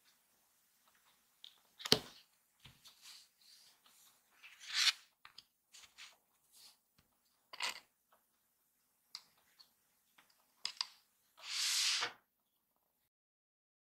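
Card-stock paper parts being handled on a cutting mat: scattered light rustles, taps and clicks, the sharpest click about two seconds in. Near the end comes a longer brushing rustle as paper slides against paper.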